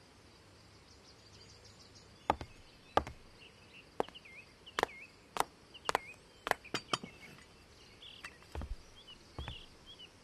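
High-heeled shoes clicking on stone steps, a sharp click every half second or so, the steps growing softer near the end.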